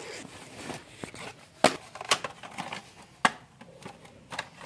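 Handling noise as a cardboard box is taken from a backpack and handled, with a few sharp clicks and knocks among soft rustling.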